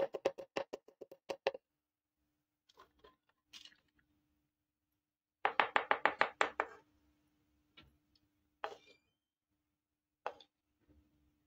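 Plastic toy kitchenware clattering and tapping as pieces are picked up and set down on a hard surface: a quick run of clicks at the start, another about five and a half seconds in, and single taps in between.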